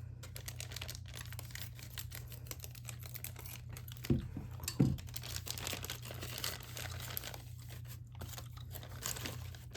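Plastic parts bag being torn open and crinkled, a dense crackle throughout, with two brief louder knocks about four and five seconds in, over a steady low hum.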